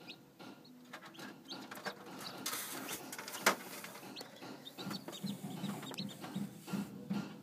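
Newly hatched chicks peeping in an incubator, short high rising peeps over and over. Eggshell pieces are handled and rustle, with one sharp click about halfway through. A soft low pulse about three times a second comes in near the end.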